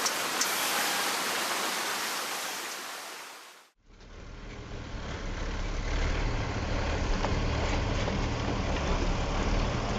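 A steady hiss that fades away, then, after a cut, a heavy truck's engine running with a steady low drone.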